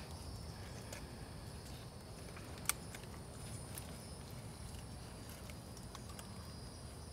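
Quiet outdoor ambience with a steady high-pitched insect drone. A single sharp click about two and a half seconds in and a few lighter taps come from plastic nursery pots being handled and set against one another.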